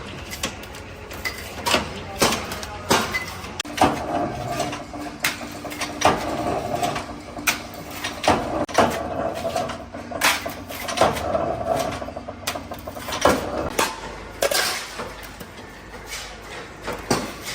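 Irregular metal clanks and knocks, with a steady machine hum from about four seconds in until near the end.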